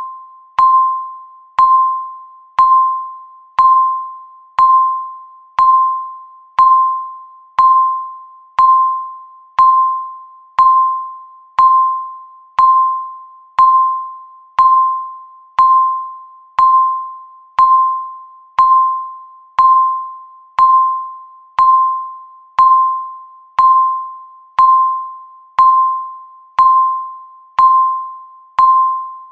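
Countdown timer beeping once a second: a single-pitched electronic beep, each starting sharply and fading away before the next.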